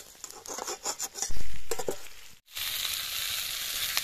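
Chicken pieces in masala being stirred and fried in a steel kadai, with a steel spatula clicking and scraping and a low thump about a second in. After a sudden break, a steady loud sizzling hiss as water goes into the hot masala.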